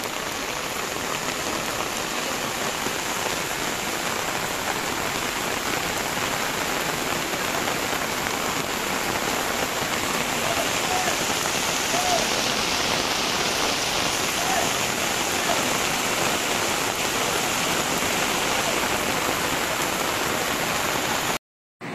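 Heavy rain falling steadily, a dense even hiss of downpour. It cuts off abruptly near the end.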